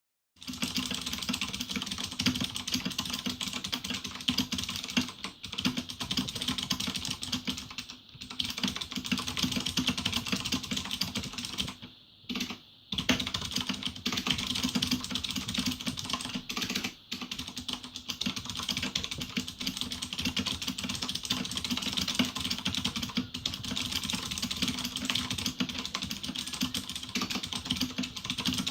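Fast touch typing on a Razer BlackWidow Ultimate 2013 mechanical keyboard with clicky Cherry MX Blue switches fitted with dampeners, at about 600 characters a minute: a dense, continuous clatter of key clicks with a few brief pauses, the longest near the middle.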